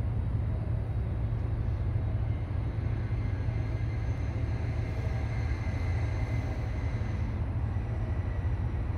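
Steady low rumble and hum beneath an elevated viaduct, with faint high whining tones over it that fade out about seven and a half seconds in.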